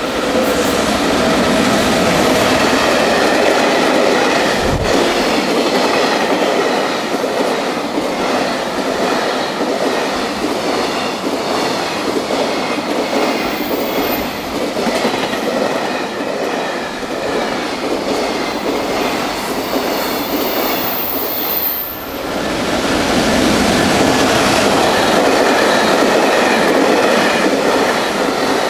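Container freight trains running past at speed, wheels clattering steadily over the rails, with a faint high wheel squeal now and then. About 22 s in the sound breaks and a second freight train passes.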